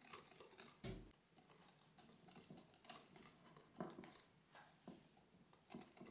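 Faint, irregular clicks and scrapes of a mixing utensil against a bowl as melted chocolate is stirred into a beaten egg-and-sugar brownie batter, with a soft thump about a second in.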